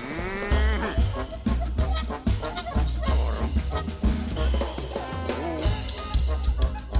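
Music with a drum-kit beat and heavy bass, opening with a rising pitched glide in the first second.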